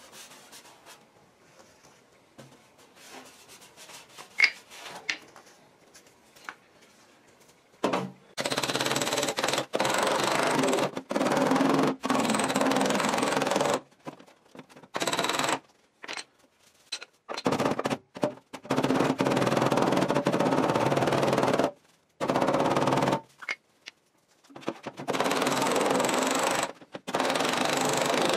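A body hammer tapping rapidly on the sheet-metal front fender of a 2013 Nissan Rogue, knocking out a dent. The tapping comes in runs of one to four seconds with short pauses; it is quiet for the first several seconds apart from a few single taps.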